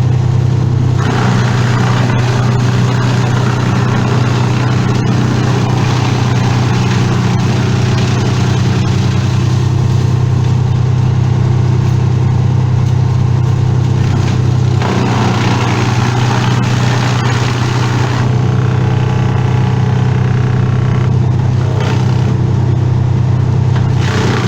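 An engine running steadily at a constant speed for the whole stretch, with a brighter, rougher noise over it that fades and swells several times.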